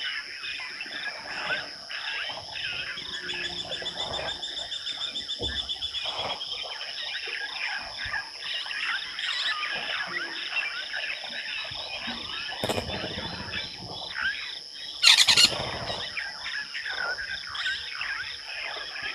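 Evening bush chorus at a waterhole: a steady high insect drone under dense, overlapping chirps and calls of birds and frogs. About fifteen seconds in, one louder call lasts about a second.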